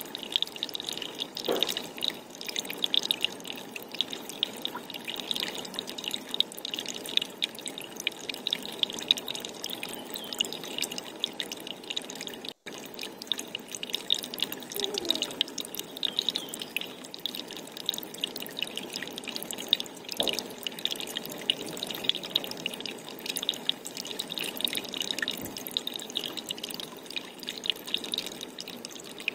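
Water dripping and trickling in a steady, dense patter of small drops, with a few slightly louder knocks now and then.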